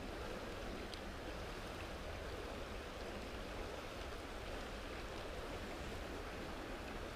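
Steady rushing of a mountain stream's water, with a faint click about a second in.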